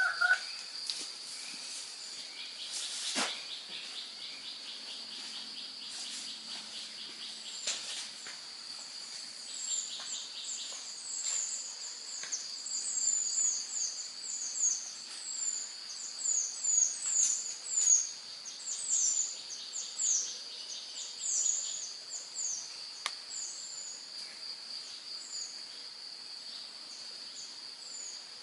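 Woodland ambience: insects keep up a steady high drone, and a small bird sings quick runs of high, down-slurred chirps from about eight seconds in until past twenty seconds. One sharp click comes about three seconds in.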